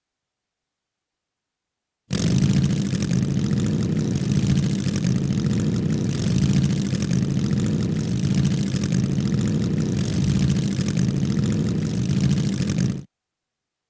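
Motorcycle engine idling: a steady low rumble with an even pulse, starting about two seconds in and cutting off abruptly near the end.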